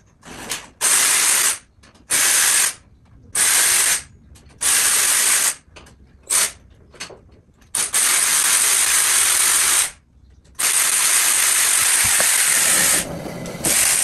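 Cordless ratchet whirring in repeated short bursts, then in two longer runs of about two and three seconds, spinning out the clutch cover bolts on a motorcycle engine.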